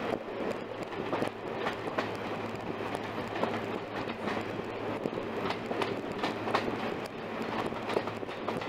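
Heritage passenger train running at speed, heard from a carriage window: a steady rumble and low hum with a continual uneven clicking and knocking of the coach wheels over the rail joints.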